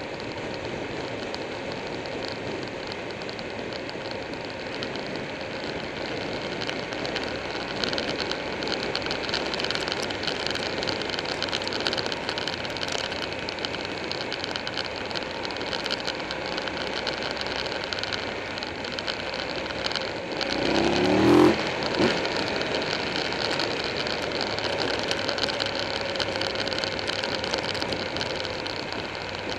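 Wind rushing over a motorcycle-mounted camera over the steady running of a Buell 1125R's V-twin engine at road speed. About twenty-one seconds in, the sound briefly swells louder with a quick rise and fall in pitch.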